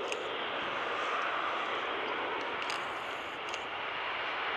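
Boeing 747 jet engines heard at a distance: a steady jet noise that slowly grows louder, with a thin whine coming in near the end.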